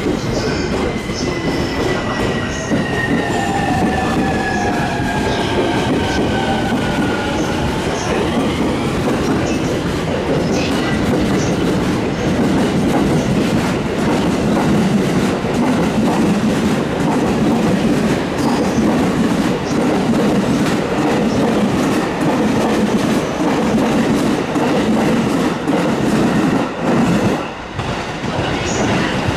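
Electric train on the JR Tokaido Line moving through the station. A motor whine falls in pitch over the first several seconds, then the steady rumble and clatter of wheels over the rails runs on, dipping briefly near the end.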